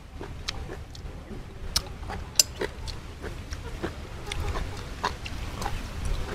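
Close-up eating sounds: a person chewing fish with wet lip smacks and mouth clicks, a few short irregular smacks a second, the loudest about two and a half seconds in.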